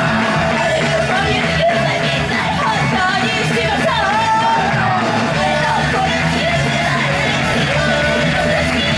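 A woman singing live into a microphone over loud, continuous pop-rock backing music, heard through the club's PA.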